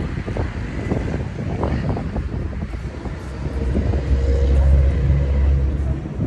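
Traffic noise with a motor vehicle's engine running nearby, its low hum swelling about four seconds in, then easing near the end.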